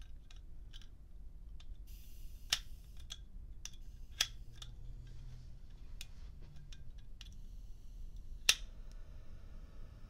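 Zippo Blu butane lighter handled in the hand: small metallic clicks of its lid and mechanism, with sharper clicks about two and a half and four seconds in. Near the end the flint wheel is struck with a loud click and the lighter's blue torch flame catches, followed by its steady hiss.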